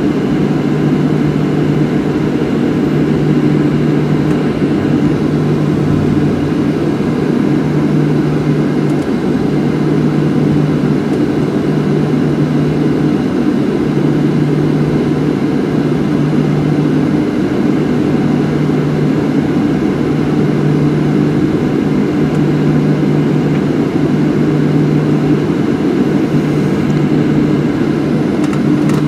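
Steady cabin noise inside a Boeing 737-700 taxiing slowly, its two CFM56 engines at taxi idle, with an even low hum.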